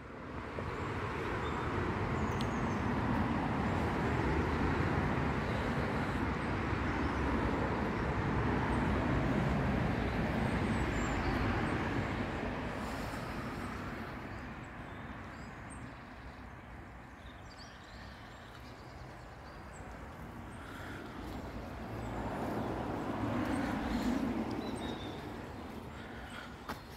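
Road traffic passing: a broad rush of tyres and engines that swells and fades, then swells and fades again near the end.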